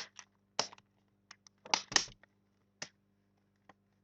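Sharp plastic clicks and snaps at irregular intervals, the loudest pair about two seconds in, as a Dell laptop's plastic screen bezel is pressed and clipped into place around its edges.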